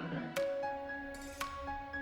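Background music: gentle struck or plucked instrumental notes, a new note about once a second over a held lower tone.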